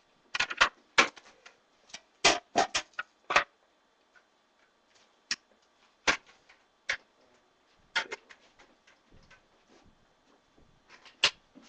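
Handling noise: a quick run of sharp clicks and clacks of hard objects being handled, then single clicks about once a second, with another short cluster near the end.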